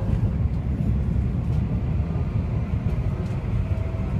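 Steady low rumble of a moving tram heard from inside the car: wheels on the rails and running gear, with faint high tones over it.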